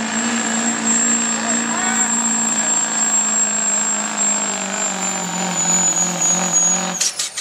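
Turbocharged diesel engine of a Ford Super Duty 4x4 pickup running hard under load as it pulls a weight-transfer sled, with a steady high turbo whistle over the engine note. The engine note sags lower in the second half as the sled bogs the truck down, and the sound cuts off abruptly about seven seconds in.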